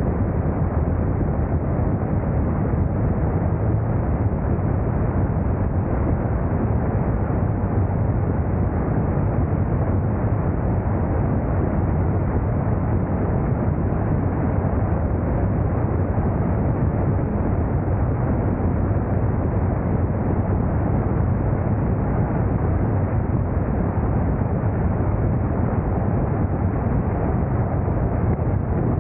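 Motorcycle riding steadily at speed: a constant engine drone under loud wind rush.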